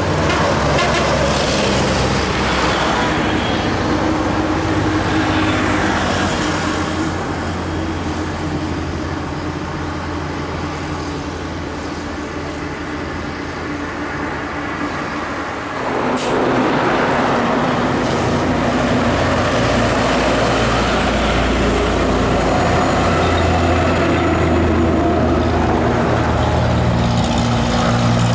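Heavy diesel trucks and buses passing on a highway, engines running with tyre noise. The traffic eases a little in the middle, then grows louder again after a sharp click about 16 seconds in.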